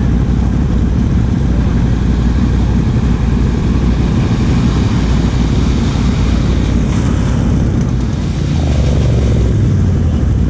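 Can-Am Outlander XMR 1000's V-twin engine idling steadily and loud beneath the camera, with another ATV's engine revving as it spins its tyres through the mud; an engine rises in pitch about eight seconds in.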